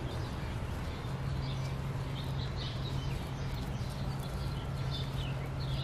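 Dry straw mulch rustling and crunching as gloved hands push it around the base of a plant. Birds chirp in short calls throughout, over a steady low hum.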